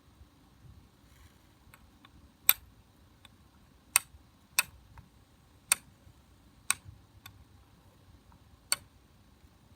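Flint struck against a fire steel to throw sparks: six sharp, bright clicks at irregular intervals, about a second or so apart.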